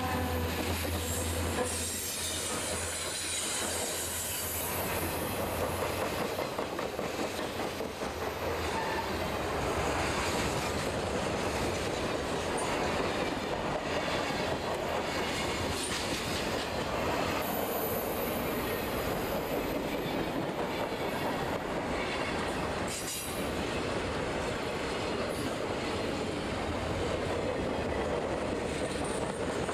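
A freight train passes close by. A diesel locomotive's low engine drone fades in the first couple of seconds, then the freight cars' steel wheels rumble steadily over the rails, with clicking at the rail joints and a thin, high wheel squeal at times.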